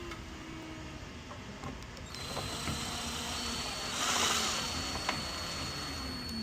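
A handheld power drill runs with a steady high whine. It starts about two seconds in and is loudest for a moment in the middle.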